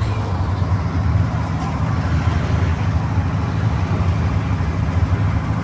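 Engine running steadily with a deep, even low rumble.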